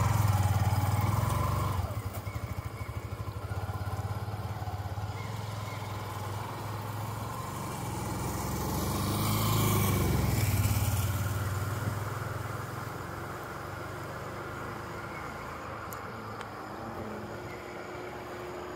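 Motor vehicle engine running close by, loudest at the start and fading over the first two seconds. Then another vehicle passes on the road, swelling to a peak about nine to ten seconds in and dying away.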